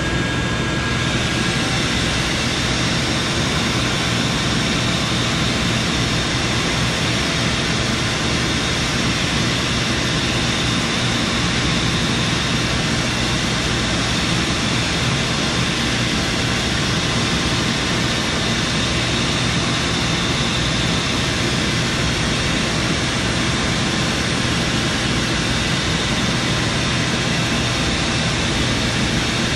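Shoe finishing machine and shop vac running together: a loud, steady rush of suction airflow over a constant motor hum, while the machine's light Naumkeag sanding pad spins against the cork edge of a sole.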